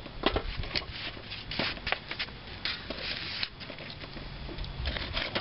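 Burning charcoal briquettes crackling and popping as the coals are stirred with a rod and throw sparks: irregular sharp snaps, with a few longer rustling bursts.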